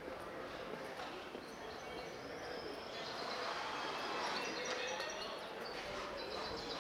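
Outdoor ambience: a steady background hum with faint distant voices, and small birds chirping from about three seconds in.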